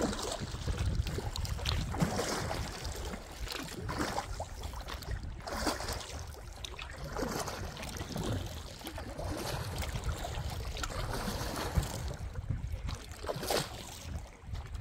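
River water splashing and sloshing in short irregular bursts every second or two as people move through the water, over a low wind rumble on the microphone.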